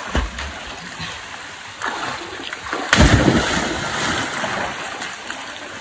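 A person plunging into a river rock pool with a loud splash about three seconds in, then the water churning as it settles. Smaller splashes from swimmers come before it.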